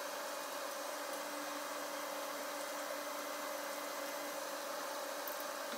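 Steady machine hum with two faint, constant whining tones, unchanging throughout.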